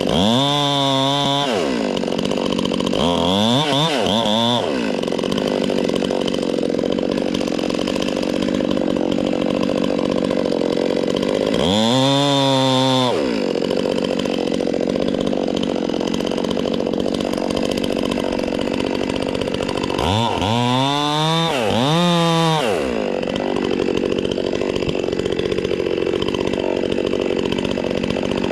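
Electric chainsaw cutting into fir wood, its motor whine rising and falling several times as the chain speeds up and slows under the cut.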